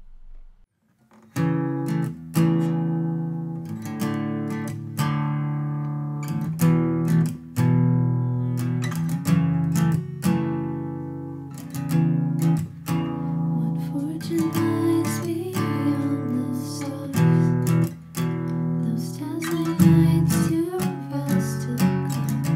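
Acoustic guitar strummed in steady chords, starting about a second in, with voices singing a worship song over it from about halfway through.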